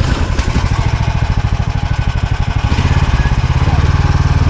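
Snowmobile engine running at idle just after being started, with an even rapid throb; it picks up a little about three seconds in.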